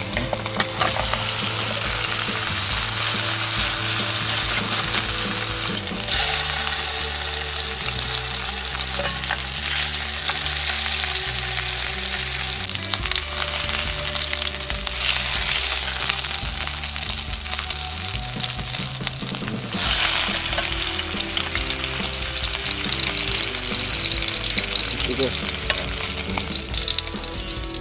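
Rack of lamb searing in hot fat in a metal pan, sizzling steadily, with metal tongs turning and scraping the meat now and then.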